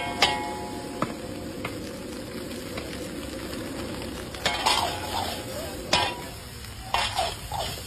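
Fried rice being stir-fried in a large metal wok, with a steady sizzle underneath. A metal spatula and ladle scrape and clank against the pan in irregular sharp strikes, more of them around the middle and near the end.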